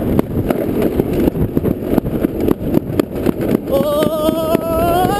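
Summer luge sled sliding fast down a trough track: a steady rumble and rattle with frequent knocks as it runs over the track surface, with wind on the microphone. Near the end a held tone joins in, rising slowly in pitch.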